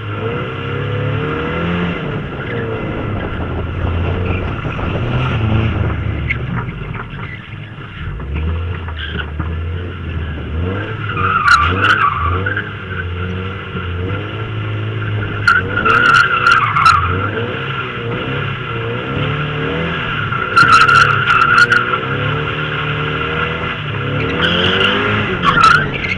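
Mazda MX-5 Miata's four-cylinder engine revving up and down while drifting, with the tyres squealing loudly in four separate bursts.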